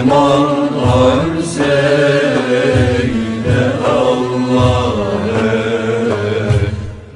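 Sung Turkish Sufi hymn (ilahi): a voice holding long, ornamented notes over a low chanted drone that swells about every two seconds.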